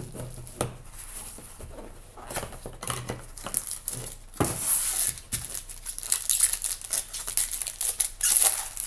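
Hands crinkling and tearing open the packaging of a trading card box: plastic shrink wrap and a foil card pack, in a run of irregular crackles and rips.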